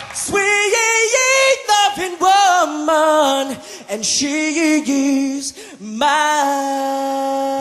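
A male a cappella lead singer sings a solo line into a microphone, with wavering, bending runs and little low bass under it. He settles onto a long held note about six seconds in.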